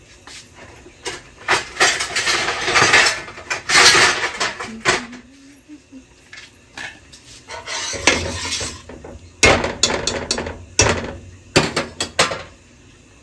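Metal kitchen utensils and a stainless steel pot clattering and clinking, with scraping bursts and a run of sharp knocks in the last few seconds.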